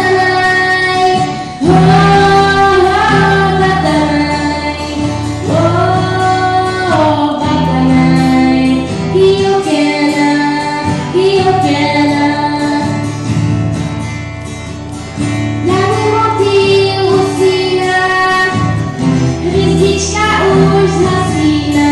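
A young female singer singing long held notes while accompanying herself on an electric guitar, heard live through the stage sound system.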